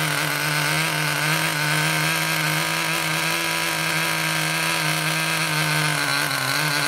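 Small nitro glow engine of a radio-controlled monster truck running at a steady speed, its pitch holding constant.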